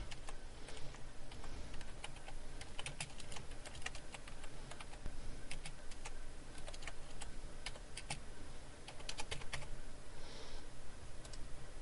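Typing on a computer keyboard: a string of irregular, fairly faint key clicks.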